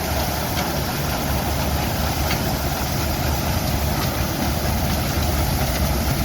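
Vintage harvesting machinery, a McCormick-Deering harvester rig, running with a steady, even engine drone.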